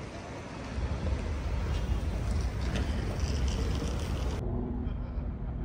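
Outdoor city street noise: a steady low rumble of road traffic, with wind on the phone microphone. Near the end it cuts abruptly to a duller, muffled traffic hum.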